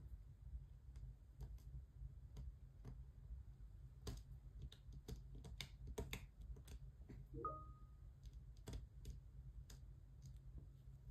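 Faint, irregular light clicks and taps of a diamond painting drill pen picking resin drills from a plastic tray and pressing them onto the adhesive canvas, over a steady low hum.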